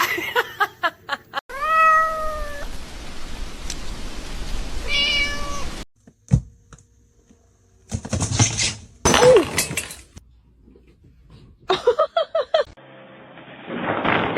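Cats meowing several times, each a short pitched cry, one rising then held and another falling in pitch; the sound cuts off and changes abruptly between calls.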